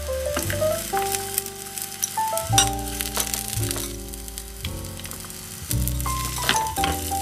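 Chopped onion sizzling in hot oil in a miniature stainless steel pan, with sharp crackles, under background music with held notes and a bass line.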